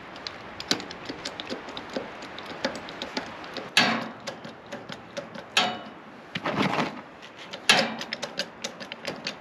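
Ratchet wrench clicking in short quick runs as a riding mower's front wheel is being taken off, with four louder metallic scrapes and clatters in between.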